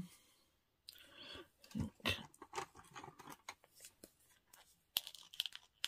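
Paper and card pieces being handled, rustling in short bursts, with a quick run of small sharp clicks near the end.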